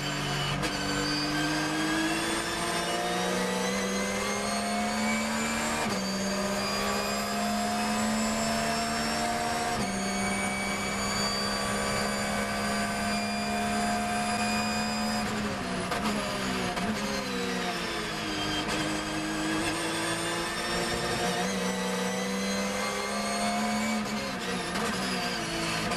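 Porsche 911 GT3 R race car's flat-six engine heard from the cockpit, accelerating hard with two upshifts in the first ten seconds and holding high revs. It then drops through the gears under braking, pulls up again through another shift, and falls once more under braking near the end.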